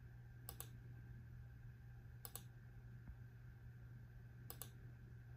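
A few faint double clicks at uneven intervals over a steady low hum.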